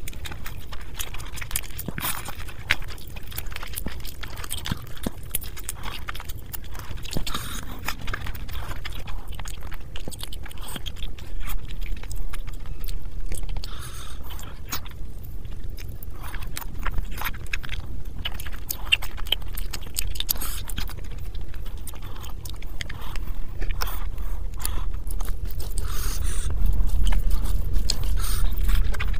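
Close-miked chewing, biting and wet mouth sounds of a person eating rice and curry, with sticky scraping sounds of fingers mixing rice and gravy. Many short irregular clicks and crackles sit over a low steady rumble that grows louder near the end.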